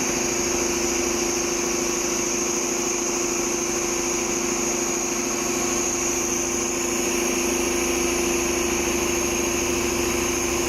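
Richpeace multihead leather sewing machine running steadily at speed, a fast even needle rhythm under a steady hum and a high whine. It starts right at the beginning and keeps an even pace throughout.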